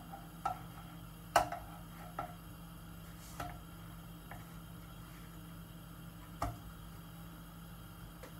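A spatula knocking and tapping against a frying pan a handful of times at uneven intervals, the loudest knock about a second and a half in, over a steady low hum.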